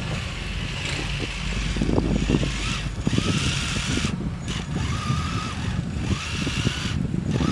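RC truck's electric motor and transmission whining in several short throttle bursts while the 3D-printed tracks churn and clatter in deep snow; the truck is stuck on a steep climb.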